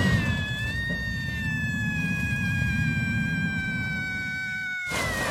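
A boy's long, high-pitched scream, held as one sustained note that slowly sinks in pitch, over a loud low rumble from a moving vehicle. Both cut off suddenly near the end.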